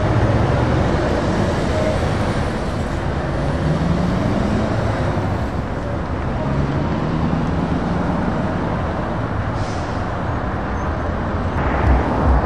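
Heavy truck diesel engines and road traffic, with a tractor unit pulling away and its engine note rising twice as it accelerates.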